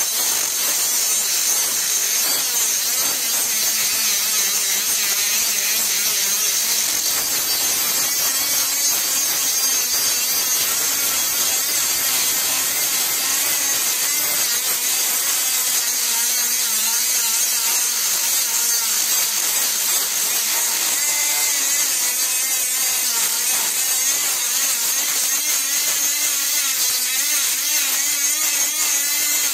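Straight grinder with a small abrasive disc grinding down the steel rivet head on a car's front lower ball joint, throwing sparks. A continuous, high-pitched grinding hiss with a faint tone that wavers a little in pitch.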